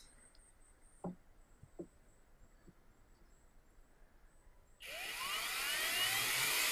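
Small cordless power screwdriver driving a screw into a wooden chair leg, starting about five seconds in, its motor whine rising in pitch as it spins up. A couple of light wooden knocks come before it as the leg is handled.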